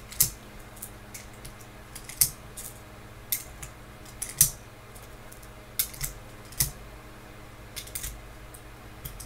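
9mm cartridges being loaded one by one into a Smith & Wesson SD9 VE pistol magazine with a Makershot speedloader: about a dozen sharp, irregular clicks as each round is pushed down and seats.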